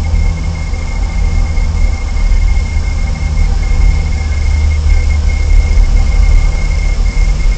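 Steady low rumble with a constant high-pitched whine running through it: continuous background noise on a nest-camera microphone, with no eagle calls.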